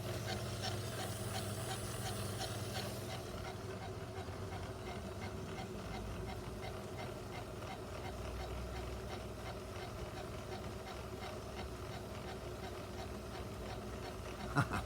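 Metal lathe running steadily while the tool takes a fine cut on the electrode: a constant motor hum with a light, regular ticking, and a faint hiss during the first few seconds.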